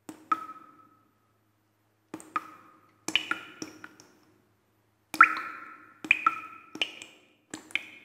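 Sparse, drip-like pings: about a dozen sharp taps, each ringing briefly at one or two clear pitches, coming singly or in quick pairs with short silent gaps between clusters.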